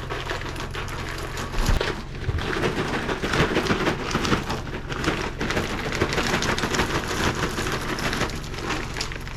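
Wood smoking chips being put into a pan and soaked with water: a dense, continuous patter of small clicks, with a brief lull about two seconds in.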